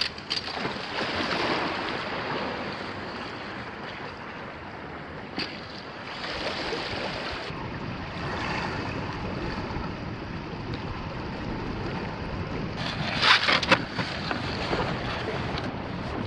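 Sea water washing and lapping against shoreline rocks. Near the end comes a brief cluster of sharp knocks, the loudest sounds here.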